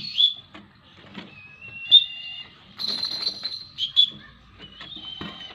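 A series of high, thin whistles, some held steady and some gliding slightly in pitch, loudest at the start and about two seconds in, with faint knocks and rustles between.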